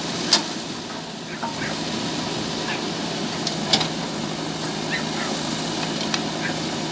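JCB 3DX backhoe loader's diesel engine running steadily while digging, with two sharp metallic clanks, one about a third of a second in and one near four seconds.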